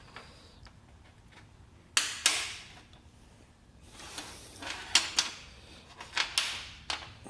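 Hand tools, ratchets, being handled: short bursts of rattling and clicking with a few sharp clicks, the loudest about two seconds in, around five seconds, and a little after six seconds.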